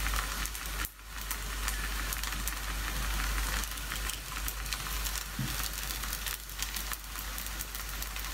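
Batter paratha frying in a non-stick frying pan over medium-low heat: a steady crackling sizzle, with a brief dip in level about a second in.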